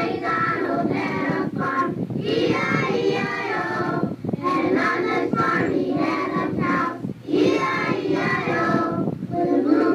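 Music: a song with voices singing in phrases a few seconds long, with short breaks between the phrases.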